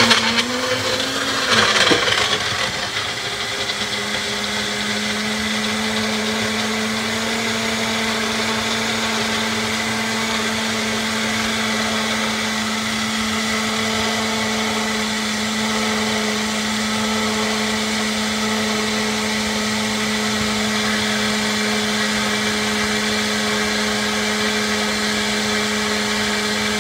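Magic Bullet blender motor running, blending frozen mango into a green smoothie. It sounds rough and uneven for the first couple of seconds while the frozen fruit is broken up, then settles into a steady hum from about four seconds in as the mix turns smooth.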